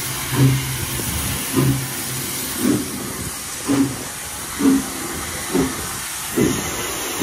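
Furness Railway No. 20, a Victorian 0-4-0 tender steam locomotive, chuffing as it moves off, its exhaust beats about once a second and gradually quickening, over a steady hiss of steam.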